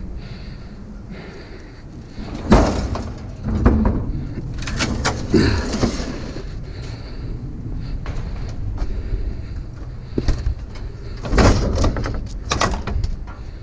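A full-size refrigerator being lifted and shoved up by hand onto a load: heavy scraping and clunks of its cabinet. Loud knocks come about two and a half seconds in, a few more follow over the next few seconds, and another loud cluster comes near the end.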